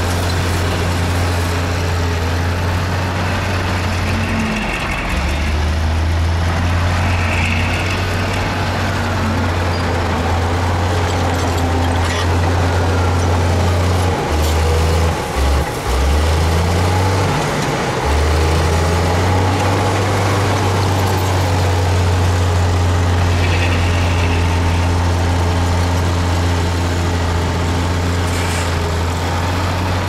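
Heavy diesel engines of dump trucks and a crawler bulldozer running: a steady low drone that shifts in pitch and briefly cuts out twice around the middle.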